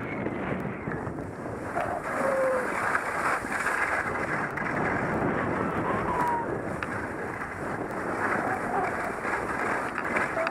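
Wind rushing over the microphone of a body-worn camera moving fast down a snow slope, a steady noise with a few short faint squeaks along the way.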